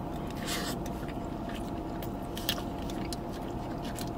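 Close-up mouth sounds of a man chewing a mouthful of a rice burrito bowl, with scattered wet clicks and smacks. A steady low hum runs underneath.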